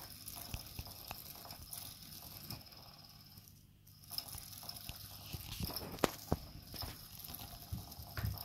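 Electric interactive cat toy whirring faintly, with scattered soft taps and a few sharper clicks as a Maine Coon kitten bats at its flicking wire lure. The whir cuts out briefly about three and a half seconds in.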